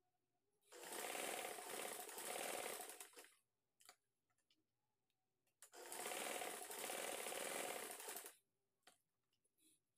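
Sewing machine stitching in two runs of about two and a half seconds each, with a short pause between, sewing a seam across the joined ends of an elastic band.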